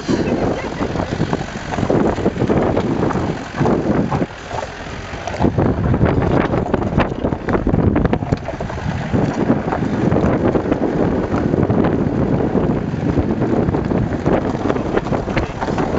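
Wind buffeting the microphone over the running of a diesel Mitsubishi Pajero driving along a rough dirt track, recorded from outside the vehicle on its side-step. The wind noise gusts throughout and eases briefly about four seconds in.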